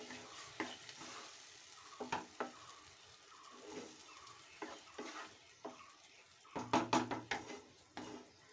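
Wooden spatula stirring and scraping chopped tomatoes around a nonstick kadai, in irregular strokes that come thickest about two-thirds of the way in. Under the strokes is a soft sizzle from the tomatoes cooking in the juice they have released.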